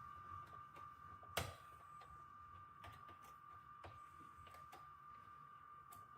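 Faint scattered clicks and taps of hands working on computer parts, with one sharper click about a second and a half in, over a steady faint high-pitched tone.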